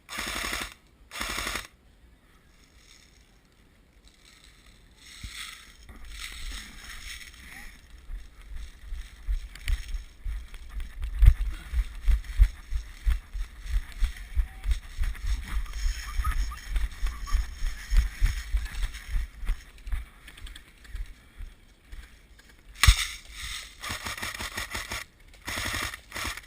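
Short bursts of automatic airsoft gunfire, each under a second: two at the start and several more near the end. In between, a long run of dull low thumps, a few a second, under a steady hiss.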